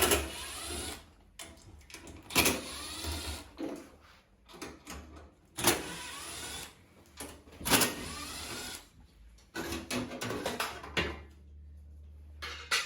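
Cordless drill/driver with a socket whirring in several short bursts, about a second each, spinning off fasteners on a washing machine.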